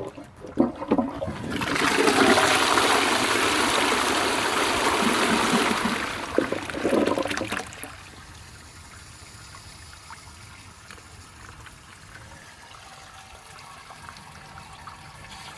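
Restored cast iron high-level cistern flushing: a few knocks in the first second as the mechanism is worked, then a loud rush of water down the flush pipe for about five seconds, ending in gurgles. After that comes a quieter steady hiss as the cistern refills.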